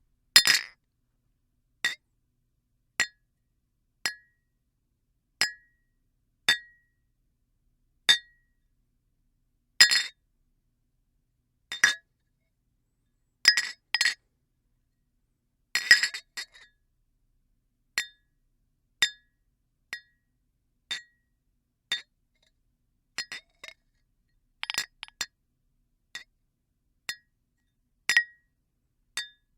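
Drinking glasses clinked together in a toast, over and over: sharp single clinks about once a second with a short bright ring after each, some in quick doubles or clusters.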